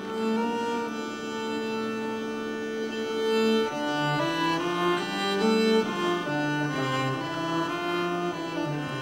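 Background music of slow, held notes that change pitch every second or so.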